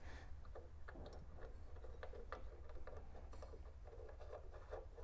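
Faint, scattered clicks and light scraping of small metal hardware being handled by hand: the chop saw vise's mounting bolt being threaded back in. A steady low hum runs underneath.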